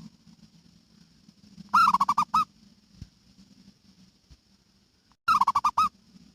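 Zebra dove (perkutut) cooing: two short phrases of rapid staccato notes, the first about two seconds in and the second near the end, each lasting well under a second.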